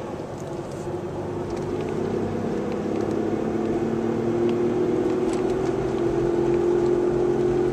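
Wheel-bearing drone from a 1998 Chevrolet Malibu on the move: a steady hum that grows gradually louder, the sound of two bad wheel bearings.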